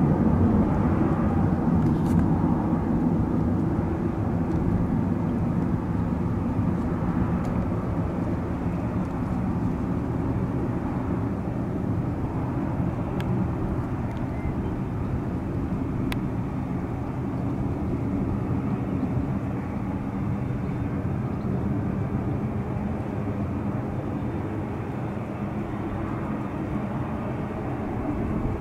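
Jet engines of a Boeing 787-9 Dreamliner, a steady noise with a faint hum in it, loudest at the start and slowly fading as the aircraft moves away.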